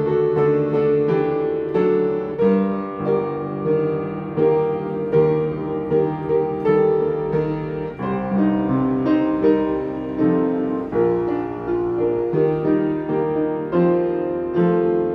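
Solo piano playing a hymn tune in chords, a new note or chord struck about every half second to second.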